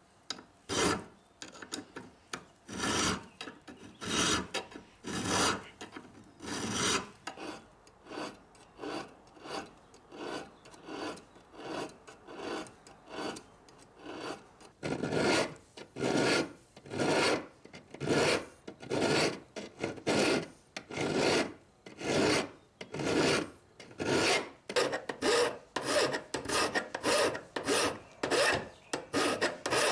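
Hand file scraping back and forth on a small piece of steel railroad track, shaping it into a mini anvil. The strokes come about one a second at first, then grow louder and quicker, to about two a second, in the second half.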